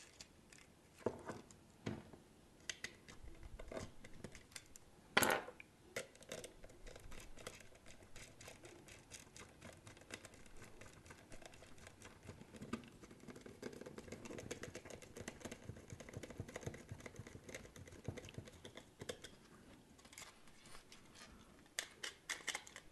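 Small hand-assembly sounds: a screwdriver driving a small machine screw into a nut on plastic brackets and parts being handled. Scattered light clicks, with a sharper knock about five seconds in, a soft scratchy rasp of turning in the middle, and a quick run of clicks near the end.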